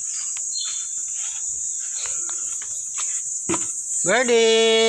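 Insects chirring steadily in a high, even hiss. Near the end a person's voice calls out loudly in one drawn-out call that rises, then holds its pitch.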